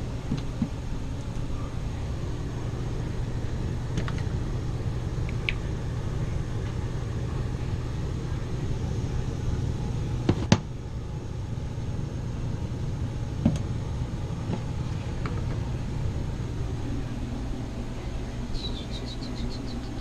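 Indoor HVAC air handler running: a steady low hum and rush of its blower. A couple of sharp knocks come about ten and thirteen seconds in, and a quick run of high ticks near the end.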